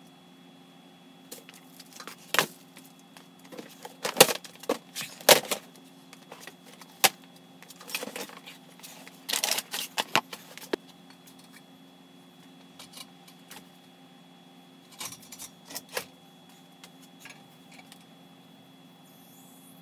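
Metal tools and hardware clinking and clattering as they are handled and rummaged through, in scattered bursts that are busiest in the middle and thin out near the end. A steady low hum runs underneath.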